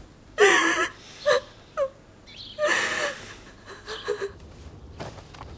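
A woman sobbing and wailing in grief: a loud cry near the start, a couple of short sobs, then a long breathy, gasping cry about halfway through, fading to quieter sobs.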